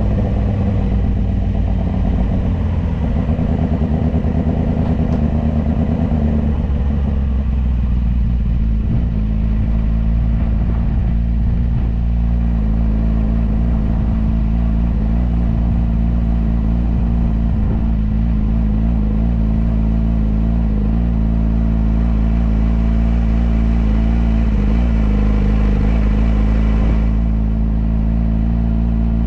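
Yamaha R6 inline-four engine with an Akrapovič exhaust running at low revs as the motorcycle rolls slowly. Its note shifts over the first several seconds as the bike slows, then holds steady.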